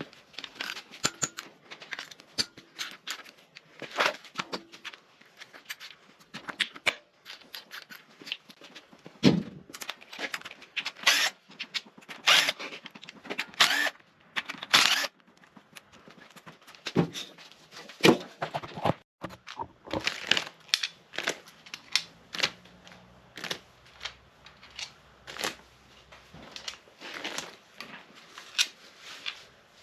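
Hand tools working on an engine being taken apart: irregular sharp clicks and clinks of metal on metal, with a few longer, louder strokes around the middle.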